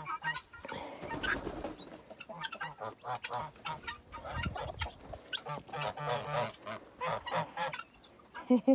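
Chickens clucking and geese honking, a steady run of short overlapping calls, with a brief rustle about a second in.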